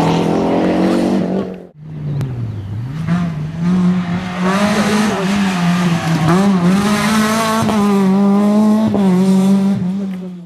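Rally car engine revving hard as it passes, its note dropping low then climbing again and holding high with brief dips. The sound breaks off sharply for a moment about two seconds in.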